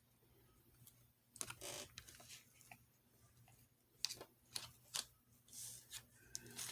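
Near silence broken by a few faint clicks and soft rustles.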